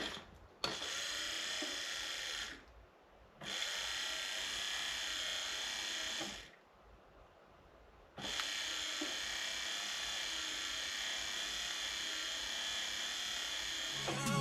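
Datsun 280Z windshield wiper motor running with a steady electric whir, switched on and off three times: about two seconds, a short stop, about three seconds, a two-second stop, then a longer run. The motor, freed up after being stuck, turns smoothly and works.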